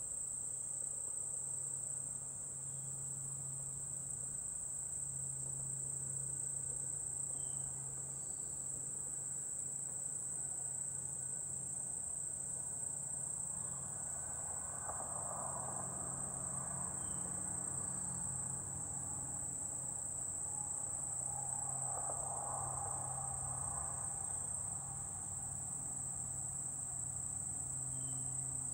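Steady, unbroken high-pitched drone of insects singing, with a faint low hum beneath it. Two brief swells of duller noise rise and fade about halfway through and again about two-thirds through.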